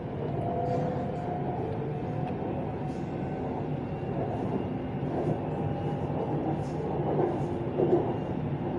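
BTS Skytrain carriage running along the elevated line, heard from inside: a steady rumble of the train in motion, with a short louder noise near the end.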